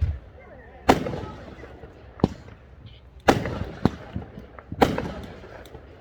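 Fireworks going off: about six sharp bangs at uneven intervals, the louder ones followed by a rumbling echo that dies away over a second or so.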